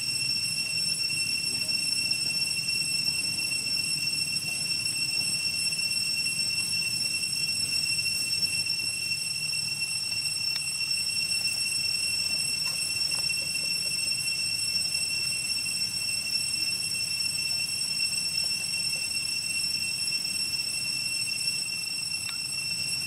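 Steady high-pitched insect drone, one constant ringing tone with overtones, over a low background rumble.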